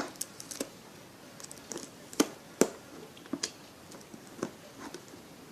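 Scattered light taps and clicks of a marker and paper being handled on a table while drawing: about half a dozen sharp ticks, the loudest two a little over two seconds in, half a second apart.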